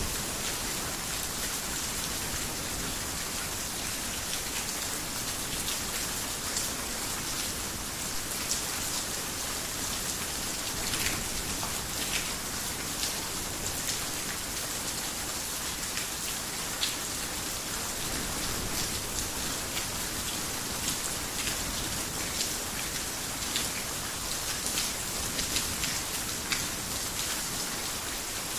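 Heavy rain falling on a roof: a steady hiss with many sharp ticks of single drops scattered through it.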